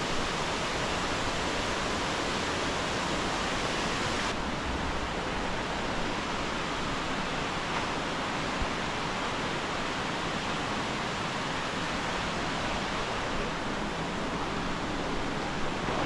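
Steady rush of mountain stream water over rocks, an even hiss with no break; its upper hiss drops a little about four seconds in.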